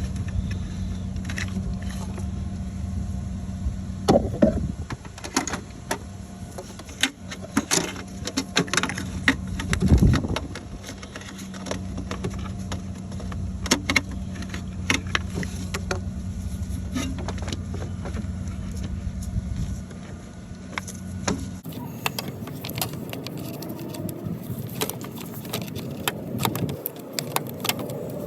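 Hand tools clinking and clanking on metal, with scattered sharp clicks and knocks, while bolts and a heat-shield tin are worked loose in a BMW N54 engine bay. A steady low hum runs underneath and cuts off suddenly about three-quarters of the way through.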